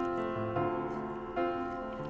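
Background piano music: gentle chords, each struck and left to ring and fade, with a new one about every second.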